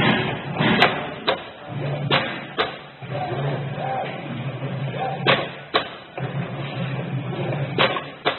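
CNC flatbed matboard cutting machine at work: a low motor hum that comes and goes in stretches as the cutting head travels, with about seven sharp clicks and knocks spread through.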